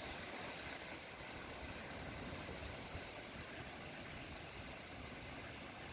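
Steady wind noise, with a fluttering low rumble of wind on a phone's microphone.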